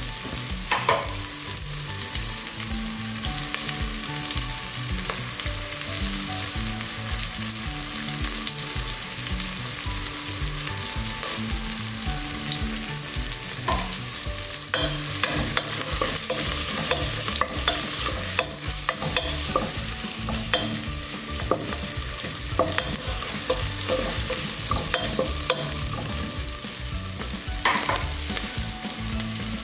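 Sliced onions and ginger sizzling steadily in hot cooking oil in a pot, with a few sharp knocks along the way.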